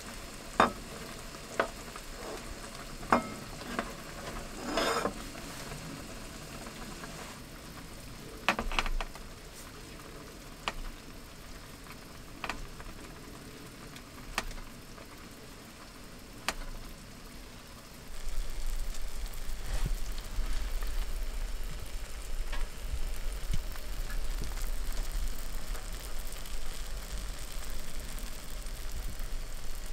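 Metal spoon clinking and scraping against a metal cooking pot and cup as food is dished out, with a dozen or so sharp clinks. About eighteen seconds in, a steadier, louder sizzle with a low rumble takes over: food simmering on a cassette gas stove.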